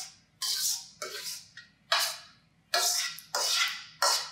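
Spoon scraping sauce out of a stainless steel mixing bowl in about six strokes, one every two thirds of a second or so, each a sharp rasp that fades away.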